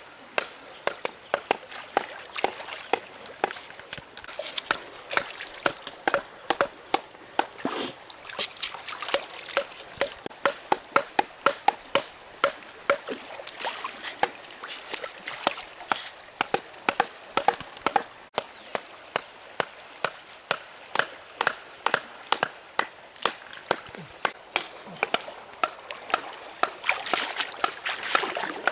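Wooden stakes being pounded into a gravel riverbed with wooden clubs: an irregular run of sharp wooden knocks, often two or three a second, over the trickle of shallow flowing water.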